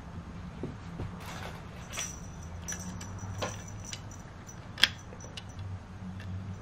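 Light clicks and small rattles of a cat toy being handled and waved, with one sharper click just before five seconds in, over a low steady hum.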